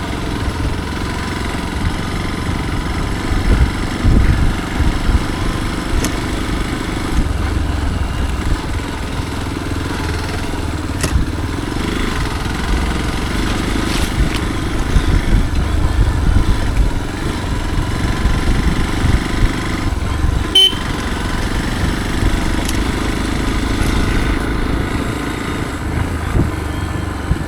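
Motorcycle running steadily with a dense low rumble, broken by a few sharp clicks, the sharpest about two-thirds of the way through.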